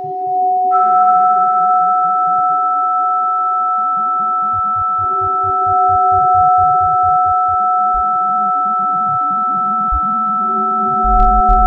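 Electronic tape music built from steady sine tones: one tone held throughout, joined under a second in by a higher tone that enters with a brief hiss, over a lower tone that swells and fades every few seconds. A fluttering low pulse, about four beats a second, comes and goes beneath.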